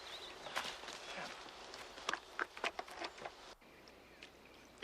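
Scattered footsteps and small knocks over faint outdoor ambience. The background drops suddenly to a quieter hush about three and a half seconds in.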